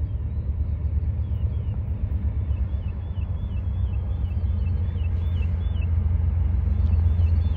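Low, steady rumble of an approaching freight train's diesel locomotives, led by GE AC44CW units, growing louder toward the end. Birds chirp repeatedly over it.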